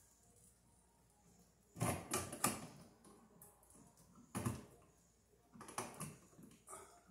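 Metal clicking and rattling as armored MC cable and a steel junction box are worked by hand, in three short bursts about two, four and a half and six seconds in.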